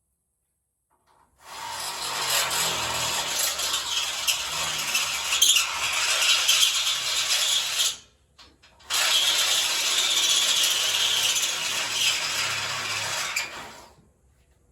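Power drill running a step bit through the steel of a truck frame, in two long runs with a short pause between, throwing metal shavings.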